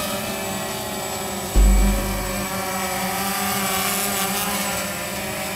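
Walkera QR X350 Pro quadcopter hovering close by: a steady buzzing drone of its motors and propellers, with several steady tones held throughout. A brief low thump about one and a half seconds in.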